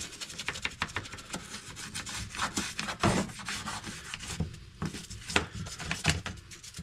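Small stiff brush scrubbing dirt off the top of the fuel tank around the fuel pump lid, in quick, uneven strokes.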